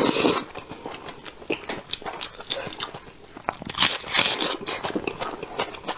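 Close-miked eating: a loud slurp and suck as meat is pulled off a braised sheep's head bone, then wet chewing with small clicks. About four seconds in comes a loud crunchy bite into a red onion.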